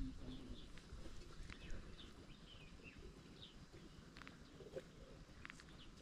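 Quiet outdoor ambience with faint, scattered short high chirps and a few light clicks.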